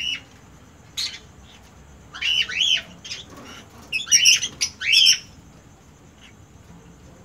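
Lovebirds calling with shrill, squawking chirps in a few short clusters, the loudest group about four to five seconds in.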